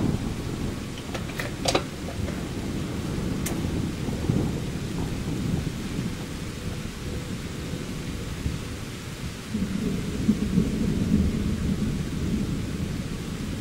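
Thunder rumbling on and off through a night thunderstorm, swelling again about ten seconds in, with a few short sharp clicks in the first four seconds.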